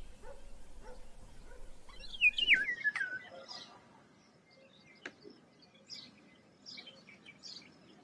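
Eurasian golden oriole singing: one loud fluting, whistled phrase that slides down in pitch about two seconds in, followed by fainter scattered chirps.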